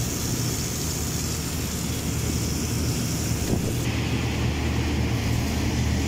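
Water jet hissing as it is sprayed onto aluminium mesh air filters, over a steady low machine hum. The hiss changes in tone about four seconds in.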